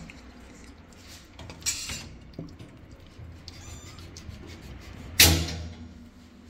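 Faint high mews from young kittens, with scattered small clicks and rustles. A loud, sharp noisy knock about five seconds in fades out over about half a second.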